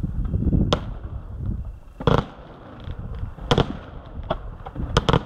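Aerial firework shells bursting in the sky, about six sharp bangs at uneven spacing with the loudest about two seconds in, over a low rumble.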